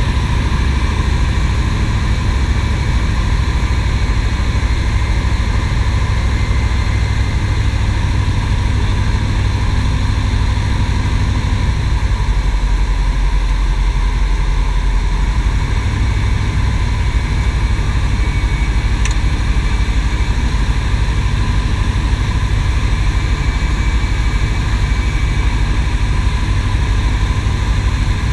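Piper PA-18 Super Cub's single piston engine and propeller droning steadily in flight, heard from inside the cockpit.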